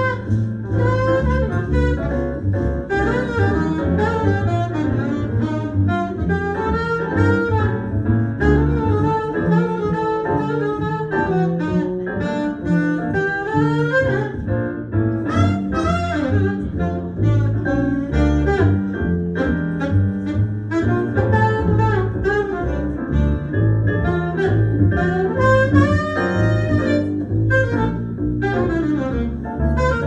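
Jazz playing: a saxophone melody over double bass.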